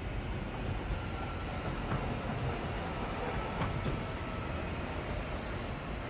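CPTM electric commuter train running past with a steady rumble, a faint steady whine and a few faint clicks from the wheels on the track.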